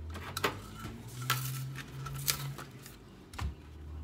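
Kitchen handling sounds: four short, sharp taps about a second apart as raw canned cinnamon-roll dough is set down on a pizza stone and the packaging is handled.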